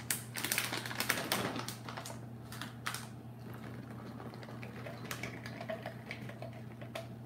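Irregular light clicks and crinkling from a plastic packet of garlic being opened and shaken out, the dry garlic pattering into a plastic food-processor bowl; the clicks are densest in the first three seconds and thin out after.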